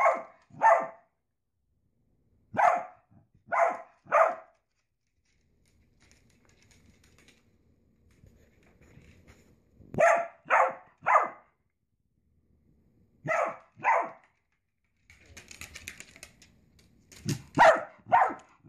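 Dachshund barking in short groups of two or three barks, with pauses of a few seconds between the groups.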